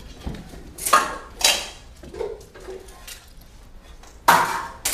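Steel swords clashing in cut-and-thrust sword fighting: two ringing strikes about a second in, half a second apart, then a louder pair of clashes near the end.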